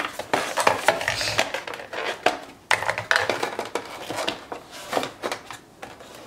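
Hands unpacking a plastic-packaged electric nail drill kit: plastic bags and a moulded plastic tray rustling and crinkling, with irregular clicks and knocks as plastic parts are set down on a table.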